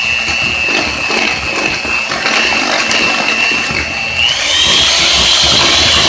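Handheld electric mixer running, its beaters whirring through thick cheesecake batter with a steady motor whine that steps up to a higher pitch about four seconds in.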